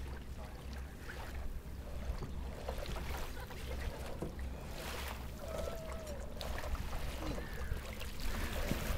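Outdoor ambience dominated by a steady low rumble of wind on the microphone, with a few faint, short, high squeaky calls near the middle and the end.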